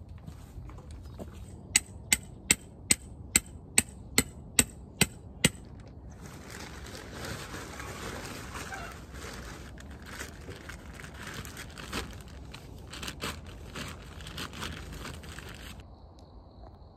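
A run of ten sharp, loud clicks about 0.4 s apart, then a long crinkling rustle of a plastic tarp being handled and pulled over a truck-bed tent frame, with a few small knocks. After a sudden drop near the end, a faint steady high insect drone.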